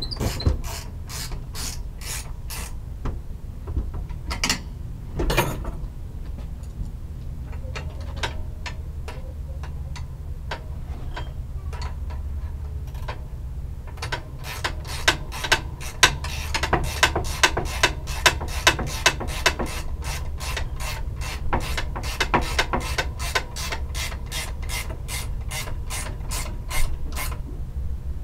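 Hand ratchet wrench clicking in runs as bolts are turned during assembly, the clicks coming thick and even, about three a second, through the second half.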